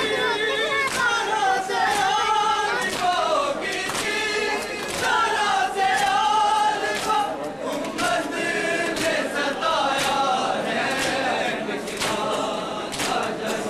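A crowd of men chanting a mourning lament together, with sharp strikes about once a second from the rhythmic chest-beating of matam.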